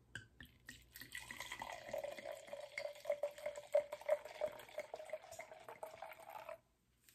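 Wine poured from a bottle into a glass: a continuous gurgling pour with a steady hollow tone, stopping suddenly near the end.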